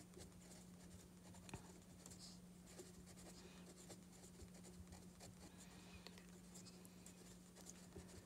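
Faint strokes of a fine pen writing words on paper, over a steady low hum.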